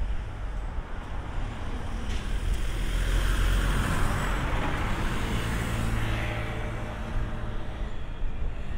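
JR Freight EH500 electric locomotive rolling slowly toward the listener at the head of a container train: a low rumble that swells toward the middle, with a steady hum from about four to seven seconds in.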